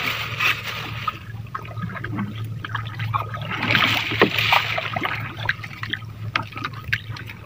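Water splashing and sloshing around a small fishing boat as a fishing net is paid out over the side, with scattered knocks and a steady low hum underneath. The splashing swells at the start and again about halfway through.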